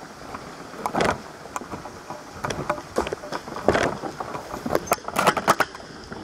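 Irregular rustles and clicks close to the microphone, with two louder rustling bursts and a quick run of sharp clicks about five seconds in.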